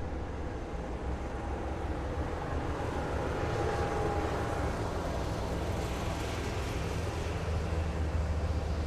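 Heavy military vehicles driving past in a column: a continuous low diesel engine rumble with road noise that swells as one passes close, and a brief whine partway through.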